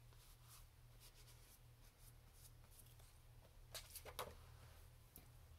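Faint rustling of packaging and products being handled, with a few short scrapes and clicks about four seconds in, over a low steady hum.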